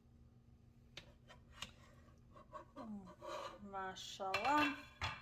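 A plastic slotted spoon clicking and scraping lightly against a nonstick pan a few times as a cooked stuffed-leaf roll is lifted out, with a woman's voice from about halfway and one sharper click near the end.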